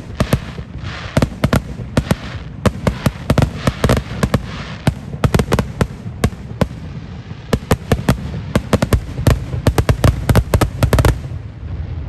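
Fireworks display: rapid volleys of sharp bangs with crackling between them over a low rumble, stopping abruptly about eleven seconds in.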